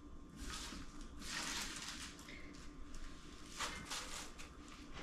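Chopped raw cabbage rustling and crinkling softly as it is swept by hand off a wooden cutting board into a pot and pressed down with the hands.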